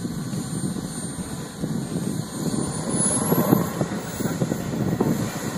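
Small gas-turbine engine of a model jet running with a high-pitched whine that climbs steeply in pitch about two and a half seconds in as the turbine spools up, over a rough low rumble that grows louder.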